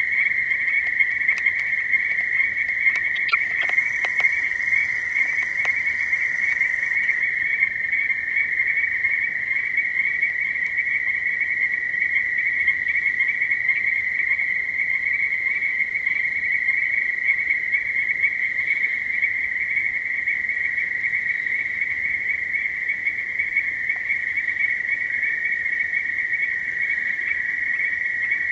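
Dense, unbroken high-pitched chorus of many frogs calling together, with a few faint clicks a few seconds in.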